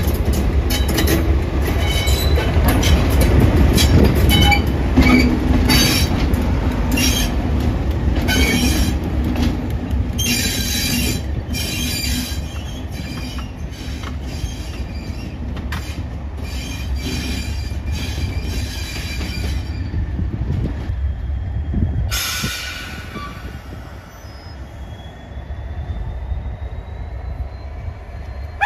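Class 37 diesel locomotive 37403 passing at low speed, its English Electric V12 diesel engine running. The wheel flanges squeal in short, repeated bursts for the first twenty seconds or so. The sound grows fainter as it moves away.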